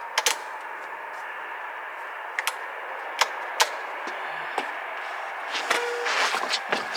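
Scattered sharp clicks and taps from handling and adjusting a mountain bike, over a steady background hiss.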